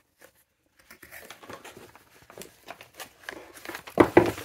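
Rustling and crinkling of paper and plastic packaging being handled, ending in a few louder knocks and crackles about four seconds in as bubble-wrapped ink sample vials are brought onto the table.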